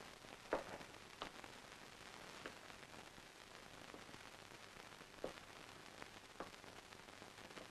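Faint steady hiss of an old film soundtrack, broken by a few scattered short clicks or knocks, the loudest about half a second in and the others around one, two and a half, five and six seconds in.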